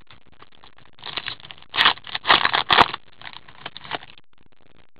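Crinkling and tearing of a hockey card pack wrapper being opened by hand, a run of crackly rustles that starts about a second in, is loudest in the middle and stops about four seconds in.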